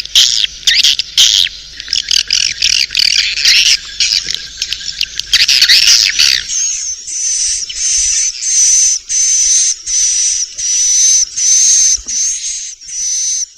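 Swiftlets' chattering, twittering calls, dense and overlapping with clicks, giving way about six and a half seconds in to short calls repeated evenly about twice a second, each with a steady high whistle. This is a recorded roosting ('inap') lure call, played to draw swiftlets in to roost in a bird house.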